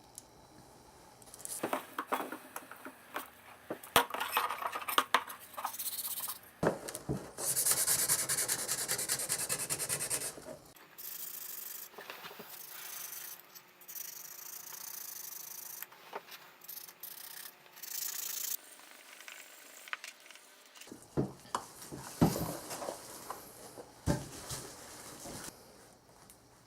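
Hand sanding and rubbing on the metal parts of an old angle grinder: uneven scraping strokes with scattered clicks and knocks, a denser steady stretch about a third of the way in, then lighter work before stronger strokes return near the end.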